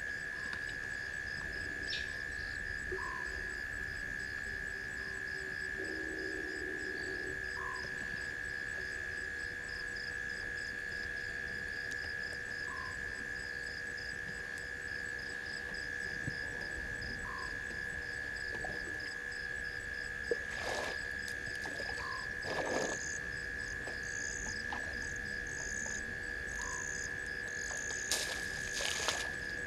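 Night bush chorus of frogs and insects: a steady high trill with short calls repeating every couple of seconds. A few times in the last ten seconds, brief cracking and rustling as an African elephant feeds in a fallen dry bush.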